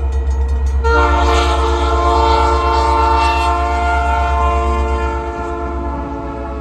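Horn of a CN freight train led by EMD SD60 diesel locomotives, sounding a long chord that swells about a second in and fades near the end, over the low rumble of the locomotive diesels.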